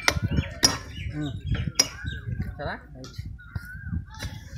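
Sharp metallic clinks and knocks of steel on steel, a few strikes in the first two seconds, from work on two rail ends being set level for thermit welding.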